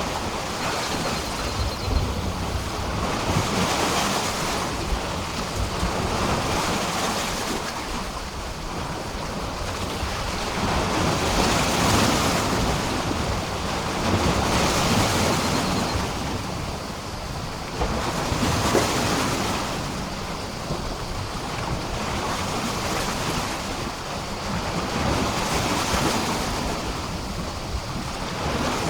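Sea waves washing and splashing against a pier, surging every few seconds in an uneven rhythm over a continuous hiss of water.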